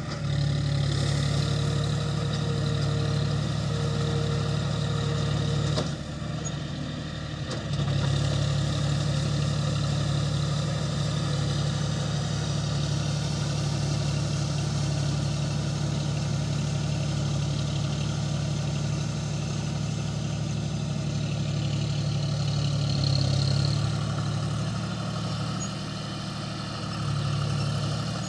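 Diesel tractor engine running steadily, heard from the driver's seat, its note dropping for about two seconds around six seconds in and shifting again near the end.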